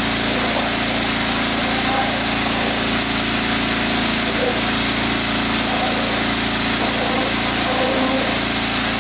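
A small engine running steadily under the hiss of a high-pressure water jet spraying into wet soil.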